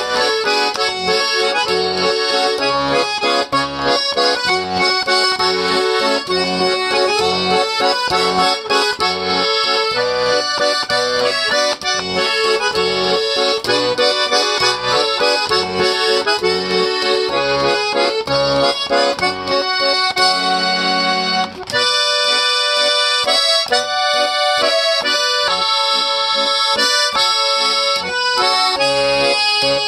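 Garmon (Russian button accordion) playing a lively tune, melody over a pulsing bass-and-chord accompaniment. About two thirds of the way through, the bass falls away and the melody carries on mostly alone.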